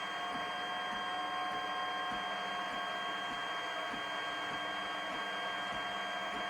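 FDM 3D printer running a print in generic PLA filament: steady whining tones from its stepper motors over a hiss, with faint ticks about every half second.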